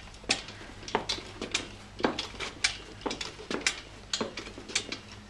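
Irregular light clicks and knocks, two or three a second, from a wheeled metal gait harness walker frame rattling as a person steps along inside it, with their footfalls.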